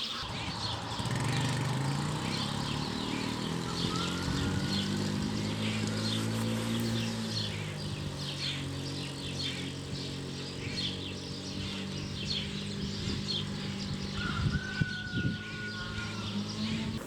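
Small birds chirping rapidly and repeatedly, with two short whistled notes, over the steady low hum of an engine running at an even speed.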